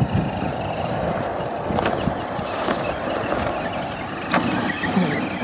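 Radio-controlled rock crawlers' brushed electric motors and geartrains whirring as they drive through snow, a steady hiss with a faint wavering whine and a few sharp clicks.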